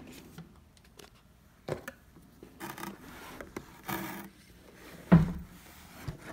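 Unboxing sounds: cardboard packaging and plastic wrap being handled, with short rustles and scattered taps, and a louder knock about five seconds in.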